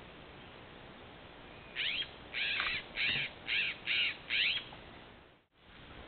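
Scrub-jay giving six quick harsh calls in a row, starting about two seconds in, each call sweeping down in pitch.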